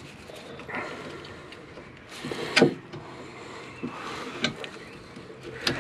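Hands working at a Ford Transit's rusty rear brake caliper: a few light metal clicks and knocks, the loudest about two and a half seconds in.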